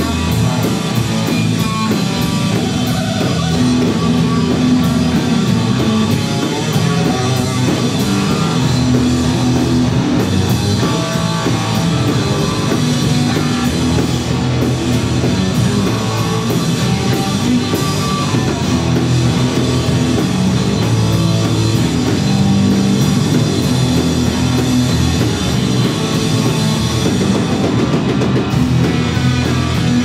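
Live heavy rock band playing loud: electric guitars over a drum kit with steady cymbal hits, dense and unbroken.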